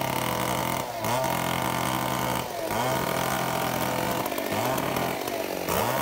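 Two-stroke chainsaw cutting up a fallen rain-tree branch, its engine note dipping and recovering every second and a half or so.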